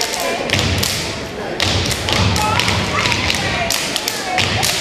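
A step team stepping in unison: foot stomps thudding on a boarded floor, mixed with sharp hand claps, in an irregular, fast rhythm.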